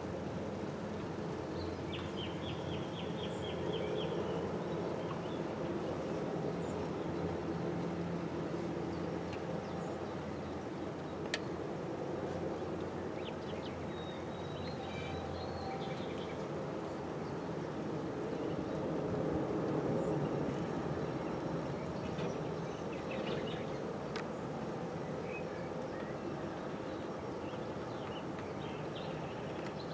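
Steady low engine drone heard from a distance across the water, with birds chirping now and then and a single sharp click about eleven seconds in.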